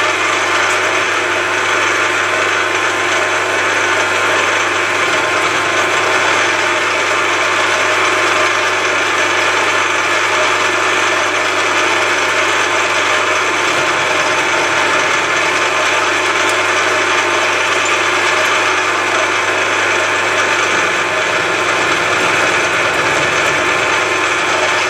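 Milling machine with an end mill cutting an angled face on a steel part. A steady cutting noise sits over a low, even motor hum.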